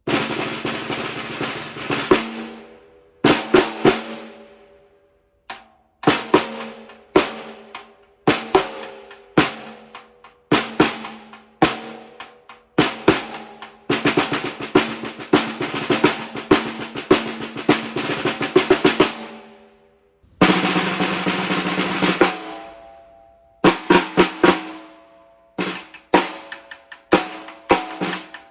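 Black Swamp Percussion Dynamicx 14x6.5-inch titanium snare drum played solo. Rolls alternate with groups of single accented strokes, and the drum rings on after each hit. The longest roll comes about halfway through.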